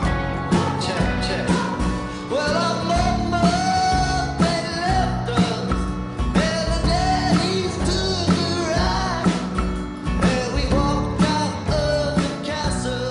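A song with a sung vocal over a steady beat, with guitar.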